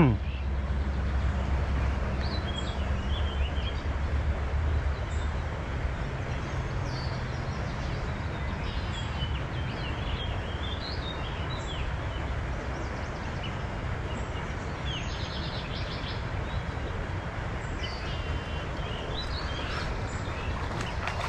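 Birds chirping now and then over a steady low background rumble.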